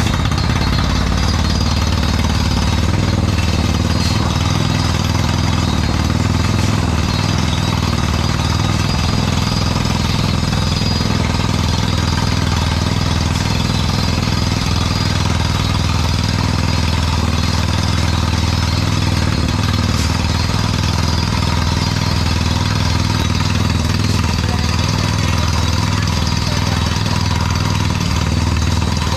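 Truck-mounted borewell drilling rig drilling steadily: rapid hammering under a constant low engine drone, with compressed air blowing the cuttings out of the hole.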